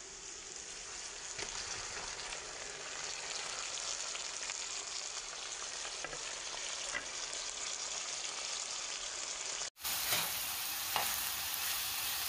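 Chopped onions frying in a pan of sesame oil with a steady sizzle as pieces of boiled tilapia fillet go in. Near the end the sound breaks off for an instant, then a spoon stirs the fish and onions, with a few light knocks against the pan.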